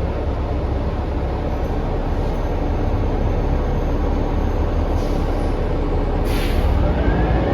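2019 New Flyer XD40 diesel city bus running, heard from inside the cabin: a steady low rumble, with two short hisses about five and six seconds in. Near the end a rising whine sets in as the bus picks up speed.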